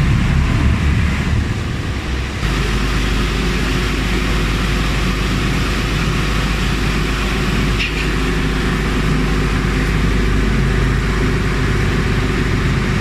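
Steady, loud low engine rumble mixed with busy outdoor noise, with a sudden shift in its character about two seconds in.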